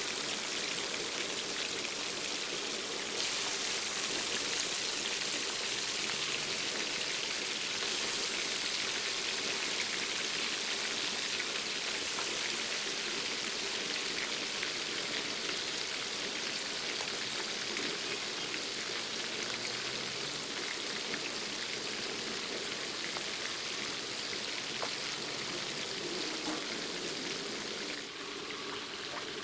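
Fish frying in hot oil: a steady sizzling hiss with light crackles.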